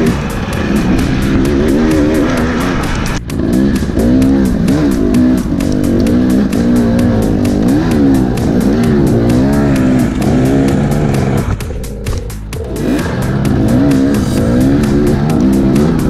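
Dirt bike engine revving up and down as the rider works the throttle, with rock music laid over it. About twelve seconds in the revs fall away briefly before picking up again.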